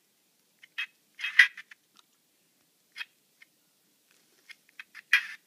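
Model steam locomotive's LokSound sound decoder putting out a few steam chuffs through its small speaker in short, irregular bursts, with gaps between, as the loco stutters without moving off. The owner reckons the wheels need cleaning and the thin contact strip at the loco-tender pin isn't making enough contact.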